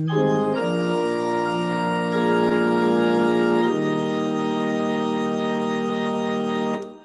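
Organ holding the closing "Amen" chords of a sung doxology, moving to a new chord twice, then cutting off just before the end.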